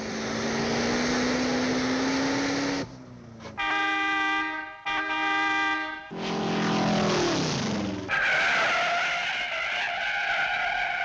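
Car sound effects: an engine revving with a slowly rising note, then two long steady car-horn blasts, an engine note falling away, and tyres squealing for the last few seconds.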